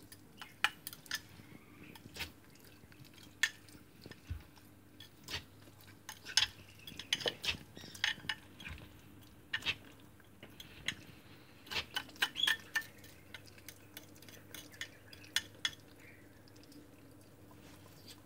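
Metal feeding tweezers clicking and scraping against a glass dish of ground meat in irregular taps, some in quick clusters.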